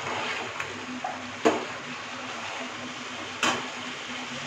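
Metal spatula stirring fried chicken through thick gravy in a pan, scraping the pan while the gravy sizzles and bubbles over high heat. Two sharper clanks of the spatula on the pan, about a second and a half in and again about three and a half seconds in.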